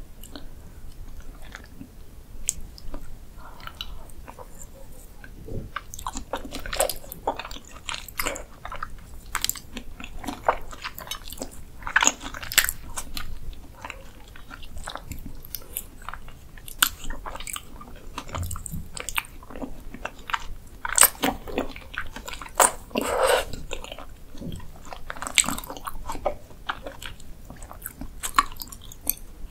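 Close-miked wet chewing and mouth sounds of beef spinal cord being eaten, in irregular smacks and clicks with a few louder bursts.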